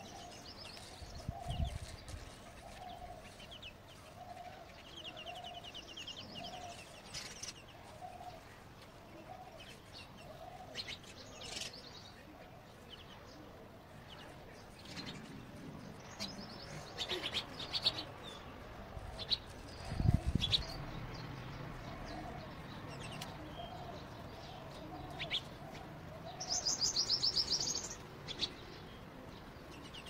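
House sparrows chirping around their nest holes, over a low note repeated about once a second. A rapid, loud trill comes near the end, and there are two dull low thumps, a couple of seconds in and about two-thirds of the way through.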